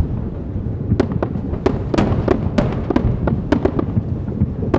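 Fireworks display at close range: a rapid run of sharp bangs and crackles, about three or four a second, over a steady low rumble.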